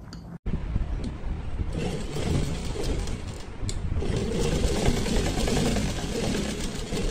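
Sewing machine running steadily, its needle stitching through layered fabric. It comes in abruptly about half a second in.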